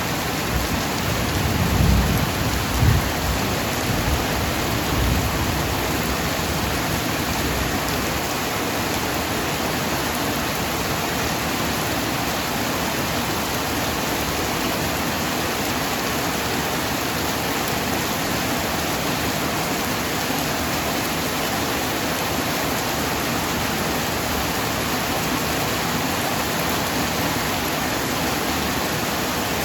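Heavy rain falling steadily as an even hiss, with a low rumble of thunder in the first few seconds.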